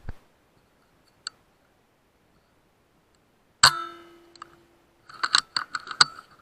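BSA R12 air rifle firing once about three and a half seconds in, a sharp crack with a short ringing tail, followed about a second and a half later by a quick run of sharp clicks.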